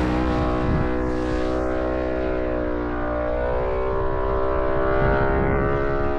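Car engine running steadily while driving, with road rumble beneath; the engine note dips slightly about halfway through and climbs back again.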